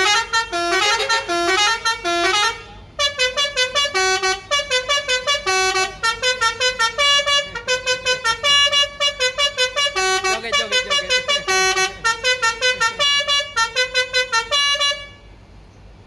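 Basuri telolet bus horn playing a tune of short stepped notes, fast and pulsing at several notes a second. It breaks off briefly about three seconds in and stops about a second before the end.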